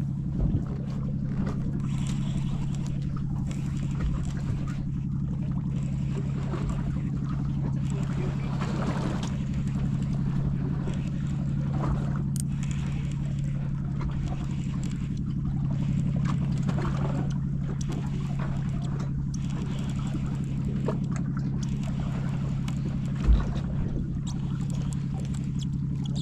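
Steady low hum of the boat's engine idling while the boat drifts, with a light irregular wash of water noise. One sharp knock near the end.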